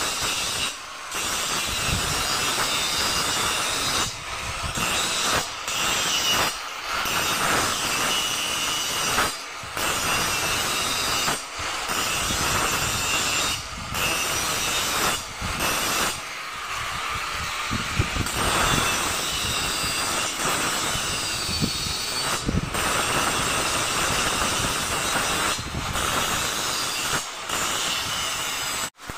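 Electric angle grinder grinding the joints of a steel window grill: a loud, steady metal-on-disc grinding noise with a high whine, broken by short breaks every couple of seconds.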